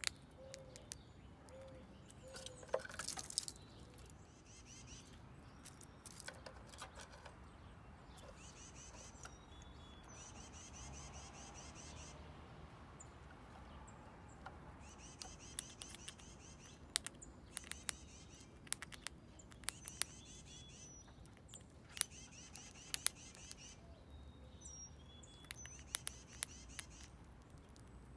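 Eastern gray squirrel chewing dried corn kernels: sharp crunching clicks come irregularly throughout. Songbirds sing in the background in repeated phrases of quick high notes.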